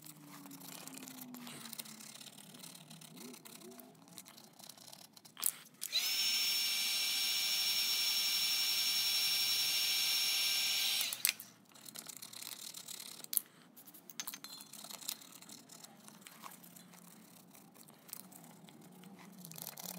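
Electric heat gun switched on with a click, its fan running steadily for about five seconds with a high whine, then switched off. Faint scraping and handling noises come before and after.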